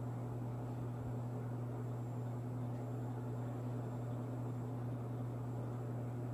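Steady low hum with a faint even hiss: room background noise with no other event.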